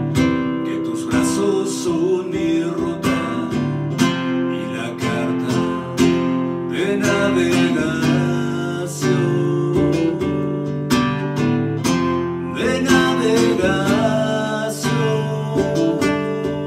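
Acoustic guitar strummed in a steady rhythm of chords, with a man's wordless singing over it at times.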